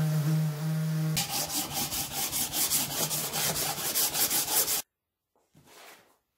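A Festool electric sander runs on the edge of a softwood board for about the first second. It gives way to a hand sanding block rubbing back and forth on the wood in quick, even strokes, which cuts off suddenly about five seconds in.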